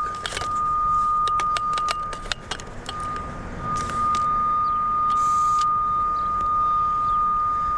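Cable locator receiver sounding a steady high-pitched tone as it picks up the signal on a buried coax cable. The tone drops out briefly about two and a half seconds in. A run of sharp clicks and rattles comes in the first couple of seconds, and there are two short hissing bursts later on.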